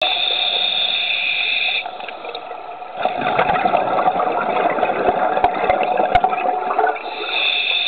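Underwater: a steady high whine for about two seconds, then about four seconds of bubbling from a scuba diver's exhaled breath with a few sharp clicks, and the whine comes back near the end.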